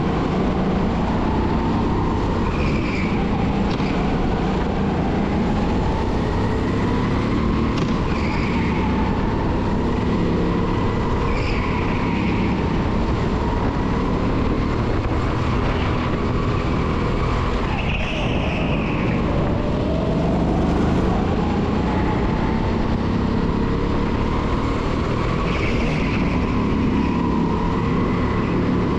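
A 270cc rental kart engine running hard through a lap, its pitch slowly rising on the straights and falling back into the corners.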